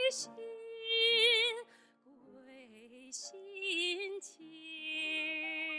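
A woman singing a slow song in Mandarin, holding long notes with wide vibrato, over piano accompaniment.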